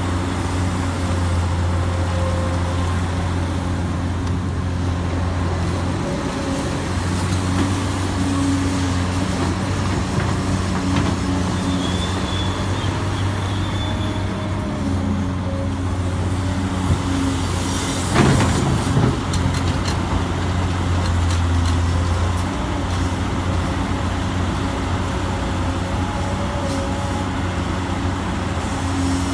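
Huina remote-control excavator running, a steady engine-like drone with a short louder rumble about eighteen seconds in.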